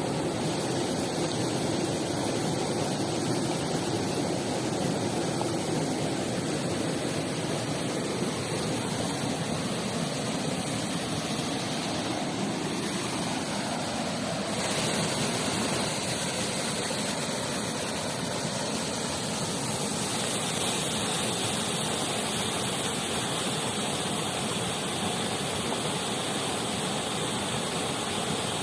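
Steady rush of a mountain river's flowing water, an even roar with no breaks.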